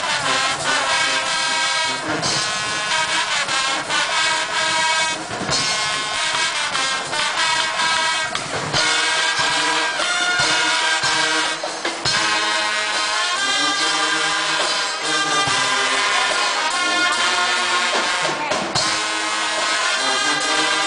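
Brass band playing a tune, horns over a steady drum beat.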